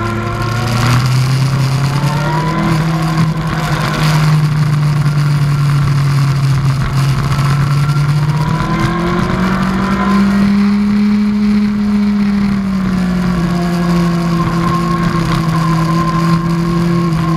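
2003 Yamaha R1's inline-four engine running hard on track, heard from a helmet camera with wind noise over it. The engine note steps up about a second in, climbs again through the middle, and eases back a little near the end.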